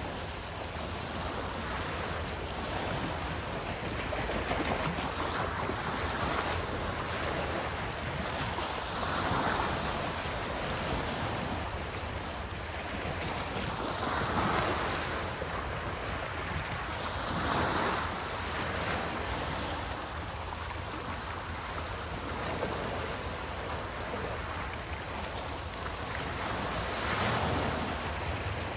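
Waves breaking and washing on the shore, the surge swelling and falling back every few seconds, with wind rumbling on the microphone.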